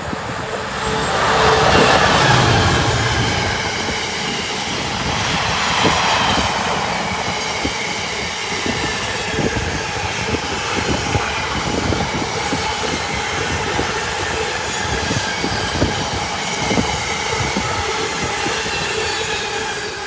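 A Class 66 diesel locomotive with a two-stroke EMD V12 passes hauling a long container freight train; its engine is loudest about two seconds in. A steady rolling noise of the wagons follows, with repeated clicks of wheels over rail joints and a faint high wheel squeal.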